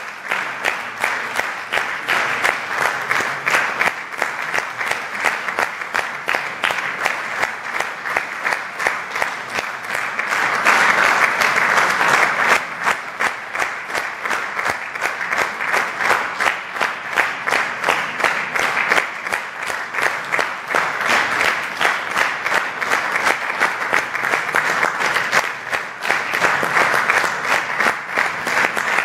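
Audience applauding continuously, swelling louder for a couple of seconds about ten seconds in.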